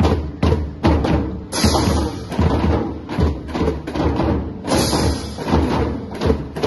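Children's drum corps playing a fast rhythmic cadence on marching snare drums, backed by bass drum beats. Two louder crash-like hits land about a second and a half in and again near five seconds.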